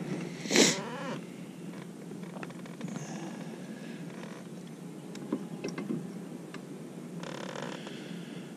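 Low steady hum of a bow-mounted electric trolling motor. About half a second in there is one loud, brief sharp sound, and a few light clicks of rod and reel handling follow around the middle.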